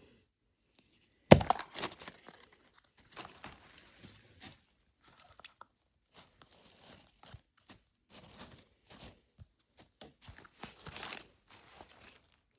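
A Mini Brands toy capsule and its plastic wrapping being opened by hand: a sharp crack about a second in, then repeated crinkling, rustling and tearing of plastic packaging.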